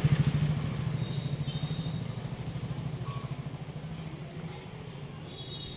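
A motorcycle engine running with a rapid, even low pulse, fading steadily over a few seconds as it moves away.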